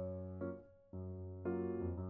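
Calm, bright background music led by piano, its notes briefly dying away about half a second in before the melody resumes.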